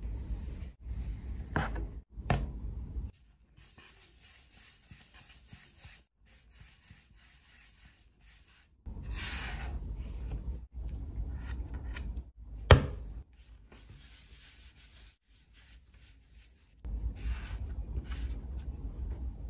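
Bread dough being rubbed and rolled against a work surface by hand to round it into balls, a rubbing sound in short separate stretches. A single sharp tap about thirteen seconds in.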